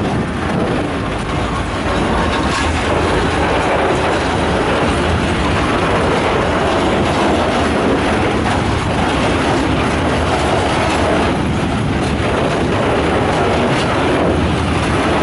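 Freight train of tank wagons rolling past at close range behind a TRAXX electric locomotive: a steady rolling noise of wagon wheels on the rails, with occasional clicks.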